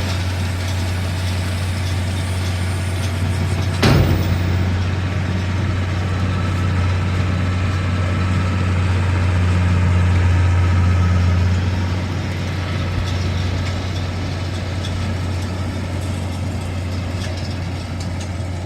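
A vehicle engine idling steadily, slightly louder around ten seconds in, with one sharp knock about four seconds in.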